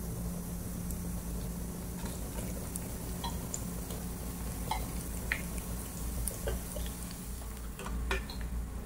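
Hot oil sizzling in a frying pan with mustard seeds, dried red chillies and garlic, with scattered small pops and clicks. Near the end a spoon stirs and clinks in a steel pot of dal.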